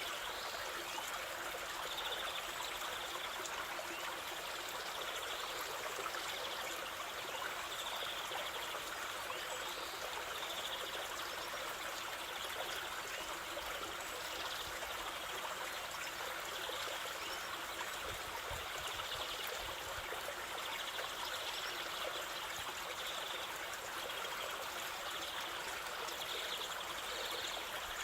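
Waterfall water rushing and splashing in a steady, even hiss.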